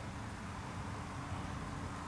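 Steady room tone: a low rumble and hiss with a faint constant hum and no distinct event.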